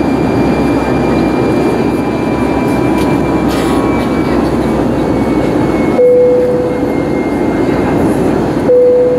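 Steady jet-engine and airflow noise inside the cabin of an Airbus A320-family airliner climbing after take-off. A single chime sounds about six seconds in and again near the end, each one a clear tone that fades over about a second.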